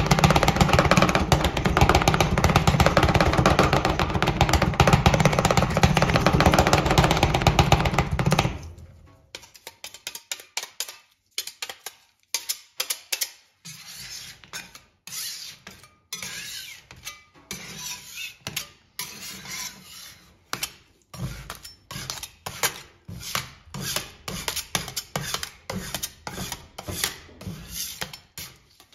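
Music for about the first eight seconds, then metal spatulas chopping and scraping a chocolate ice cream mix on a steel cold plate, heard as quick, irregular taps.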